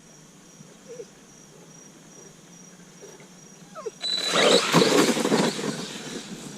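Quiet outdoor background, then about four seconds in a sudden loud burst as an Arrma Granite BLX 4x4 RC truck takes off: its brushless motor whining briefly and its tyres churning across the yard, easing off near the end.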